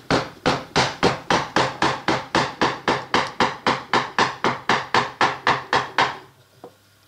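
Wooden mallet striking the handle end of a carving gouge in a quick, even run of taps, about four a second, driving the gouge into a block of alder from the edge toward the middle. The strikes stop about six seconds in.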